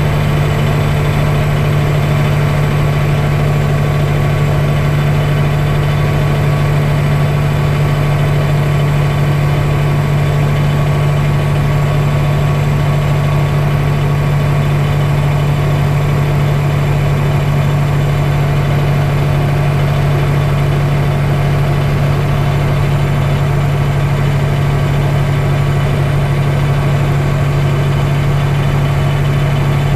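Light aircraft's piston engine and propeller running steadily in flight, heard from inside the cockpit under the canopy: a constant low drone that does not change.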